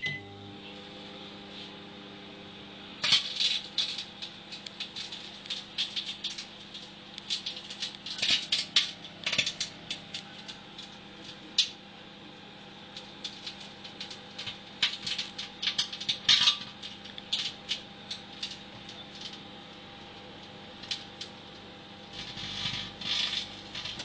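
Microwave oven running with a steady hum while a DVD on its turntable arcs and sparks, giving irregular sharp crackling and snapping that starts about three seconds in and comes in clusters.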